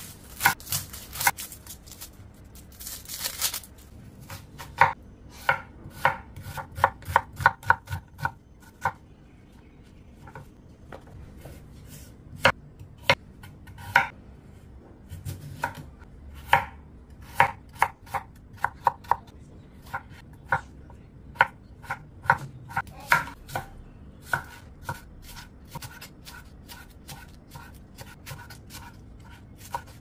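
Chef's knife chopping onion and carrot on a wooden cutting board: sharp knocks of the blade on the board in quick runs of several a second.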